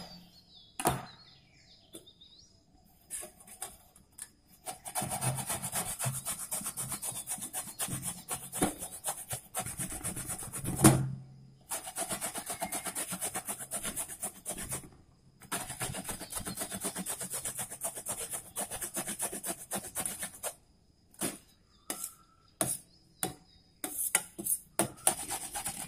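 A bottle gourd (lauki) being grated on a fine-holed metal hand grater over a steel plate: long runs of quick rasping strokes, broken by two short pauses and a sharp knock about eleven seconds in. Scattered knocks and scrapes near the start and end.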